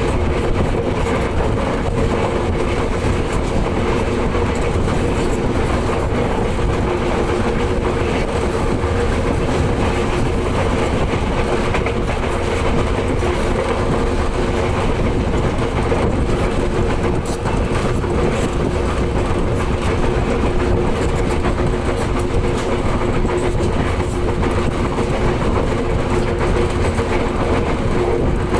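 Commuter train running, a steady rumble of wheels on the track with a constant low hum.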